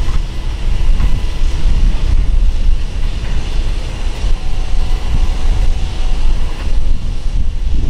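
Wind buffeting the microphone: a loud, uneven low rumble that swells and dips, with a few faint steady tones coming through.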